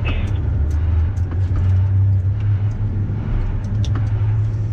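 Volvo L250F wheel loader's diesel engine running steadily under way, a low even drone heard from inside the cab, with a few light clicks and rattles.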